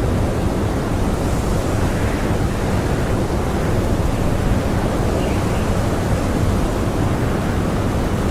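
Strong blizzard wind blowing as a steady, dense rush, heaviest in the low end.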